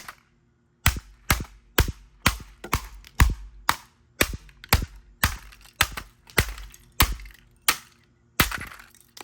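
Repeated sharp blows smashing the plastic housing of a Dirt Devil stick vacuum, about two strikes a second, some seventeen in all, after a short silent start.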